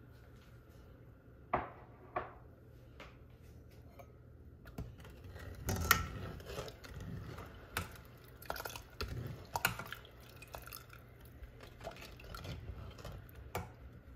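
Metal ladle stirring milk in a stainless steel pot, clinking and scraping against the pot's sides and bottom. Two sharp knocks come about two seconds in, then irregular clinks and scrapes through the rest.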